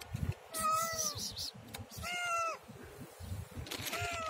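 Domestic cat meowing three times, each call short with a pitch that rises and falls, the last one starting near the end.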